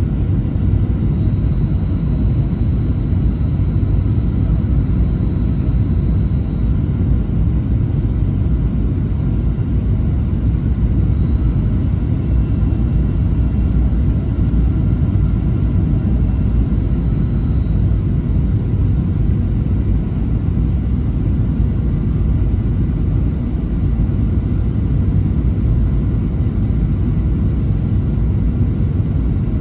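Aircraft cabin noise in flight: a steady low rumble that does not change.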